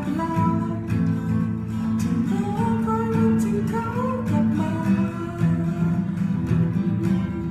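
Acoustic guitar strummed under a melody line, an instrumental passage of a cover song.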